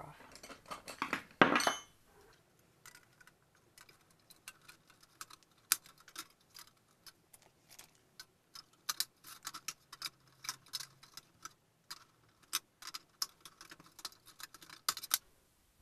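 Irregular small metallic clicks and clinks of a screwdriver working screws out and a perforated sheet-metal electronics cover being handled and lifted off.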